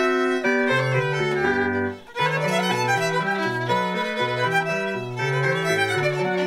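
Violin bowed, playing a 19th-century French violin melody note by note over an accompaniment with a low bass line that steps back and forth between two notes. The music breaks off briefly about two seconds in.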